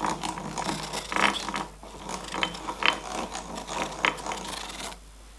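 Spiral milling setup turned by hand: the milling machine's lead screw driving a Drummond lathe headstock through a twisted timing belt and pulleys, giving irregular mechanical clicks and rubbing. The clicking stops about five seconds in.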